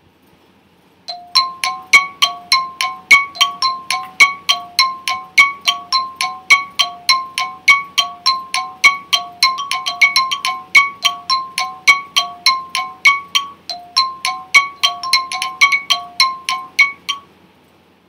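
Quiz countdown-timer sound effect: a rapid tick-tock of short, mallet-like notes alternating between two pitches, about four a second. It starts about a second in and stops suddenly about a second before the end.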